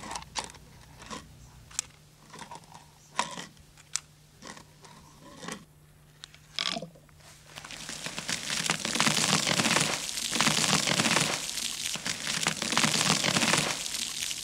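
A few light clicks and taps, then about seven and a half seconds in a loud, steady rushing spray as a Mentos-and-soda geyser shoots from the neck of a plastic bottle. The spray lasts about six seconds and dies away near the end.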